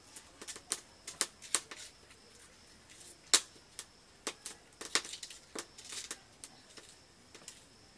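Irregular clicks and clinks of steel kitchenware: a spoon tapping a small steel pan, and steel plates and bowls knocking as food is served and eaten, with one sharp clink about three and a half seconds in.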